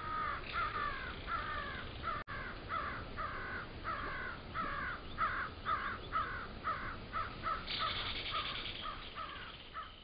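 Crows cawing over and over, a long run of harsh caws at about two a second.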